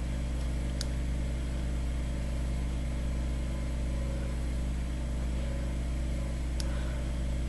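Steady low background hum with no change in level, and two faint short ticks, one about a second in and one near the end.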